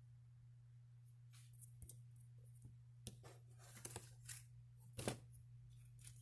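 Near silence: a steady low hum with scattered faint clicks and rustles, the loudest a little before 4 s and about 5 s in.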